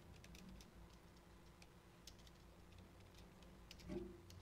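Faint computer keyboard typing: irregular key clicks as a web address is typed in.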